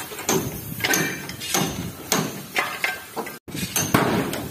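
Hammer blows on the metal body of a KSRTC bus being dismantled for scrap: metallic clanks about one every half-second or so, each ringing briefly.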